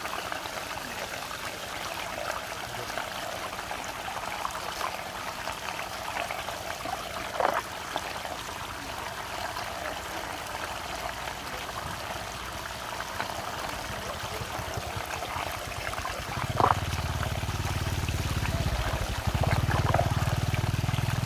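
Water of a large whirlpool rushing and swirling down into its vortex, a steady splashing hiss with a few brief louder splashes; a low rumble joins near the end.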